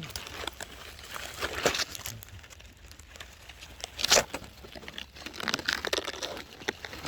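Irregular rustling and crinkling from hands working through strawberry plants and picking fruit. The loudest rustle comes about four seconds in.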